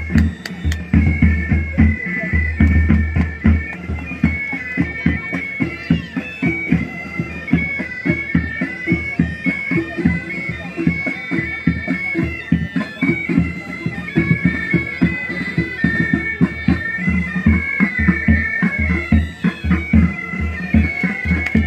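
Military pipe band playing a marching tune: bagpipes carry a stepping melody over a steady, rapid drum beat.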